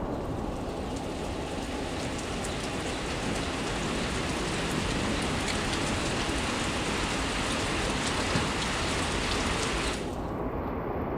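Heavy rain falling: a steady hiss with many fine pattering drops. About ten seconds in, the bright upper hiss cuts off suddenly, leaving a duller rushing sound.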